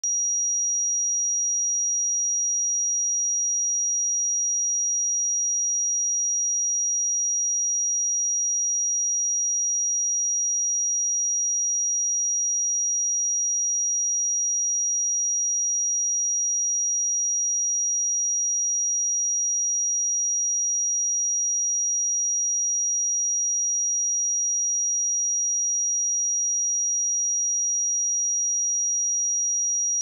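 A pure 5742 Hz sine-wave test tone, one steady high-pitched note held without change.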